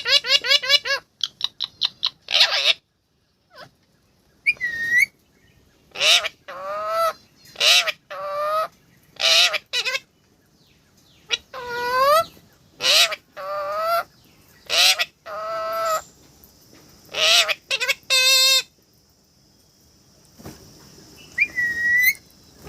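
A parrot calling over and over: a quick stutter of short notes at the start, then a long series of brief squawking calls, about one or two a second with pauses between them, and a couple of clear whistles.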